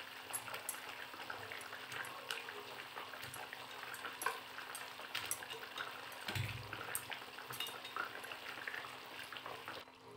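Thick curry gravy simmering in a kadhai, with small scattered pops and soft plops as fried koftas are set into it by hand. A low thump comes about six seconds in.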